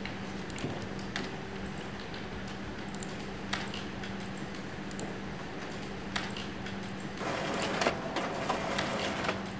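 Office room sound: a steady low hum with scattered light clicks of computer keyboards. About seven seconds in, an office printer runs for about two seconds with a louder mechanical whirring and clatter.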